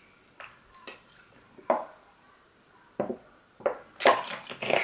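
A person drinking water from a plastic bottle: about five short swallowing gulps spaced irregularly over a few seconds, then a louder sound near the end.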